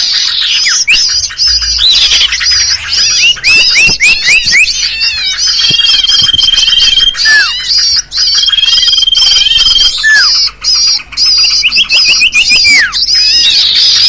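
Bird-lure recording of common iora (cipoh, sirtu) calls, many layered into a dense, constant high chatter. Two long, even trills sound in the middle, and runs of quick rising chirps come early and again near the end.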